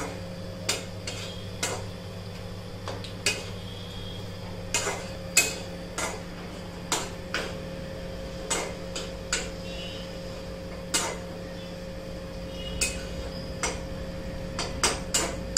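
Steel spoon clinking and scraping against a steel kadhai as jaggery is stirred into ghee to melt it, with irregular sharp clinks about once a second. A steady low hum runs underneath.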